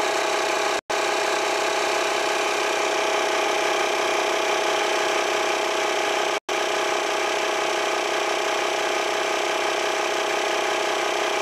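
Wolf 3-in-1 digital tyre inflator's 12 V air compressor running steadily as it pumps up a tyre toward a preset 13 PSI. The sound cuts out for an instant twice.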